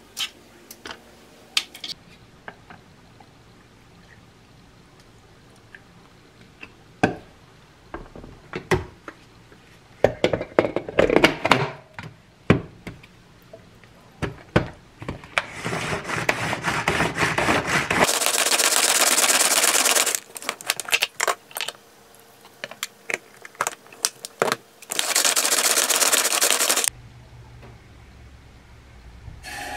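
Kitchen preparation sounds: scattered clicks and knocks of utensils and cups, then two loud bursts of steady rushing noise, each about two seconds long, that start and stop abruptly.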